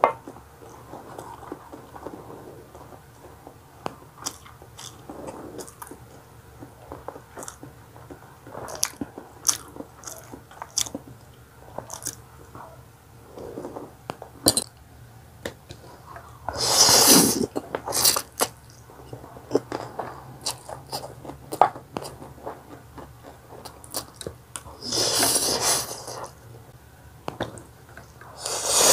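Close mouth sounds of eating spicy instant pancit canton noodles and hard-boiled egg: wet chewing and smacking with many small clicks. Twice, and again at the very end, there is a loud slurp about a second long as a forkful of noodles is sucked in.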